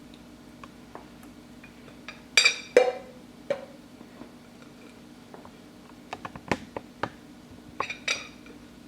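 Utensils and chopped ingredients clinking and knocking against glass jars as the jars are filled in layers. Scattered sharp clinks, the loudest a short ringing clatter about two and a half seconds in, then more clinks around six to seven seconds and near the end, over a steady low hum.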